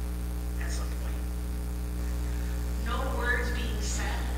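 Steady low electrical mains hum, with a woman's speech that pauses for about two seconds and resumes near the end.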